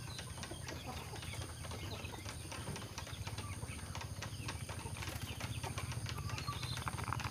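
A chicken being hand-fed a dose of medicine: many small irregular clicks and rustles with a few faint high chirps, over a steady low hum.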